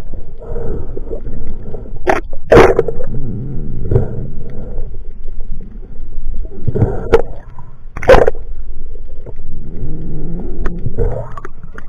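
Muffled underwater sound through a waterproof camera housing as a diver swims: irregular water rushing and gurgling, with a few sharp knocks, the loudest about two and a half seconds and eight seconds in.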